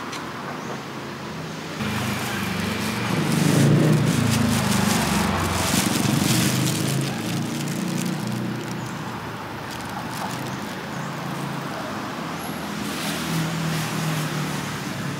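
Road traffic going by: a motor vehicle's engine rumble swells about two seconds in, is loudest around four seconds, then eases back into a steady traffic hum, with light clicks and clatter over it.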